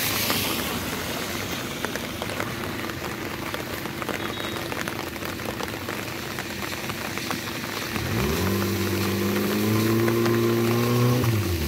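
Heavy rain hissing and pattering throughout. About eight seconds in, the stuck car's engine revs up and holds at high revs for about three seconds, then cuts off suddenly, as the car is driven and pushed to get it out of the floodwater.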